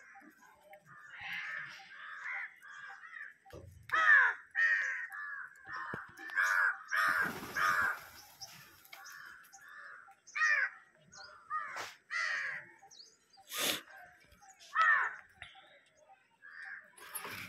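A flock of house crows cawing over and over, several birds calling across one another, loudest about four seconds in.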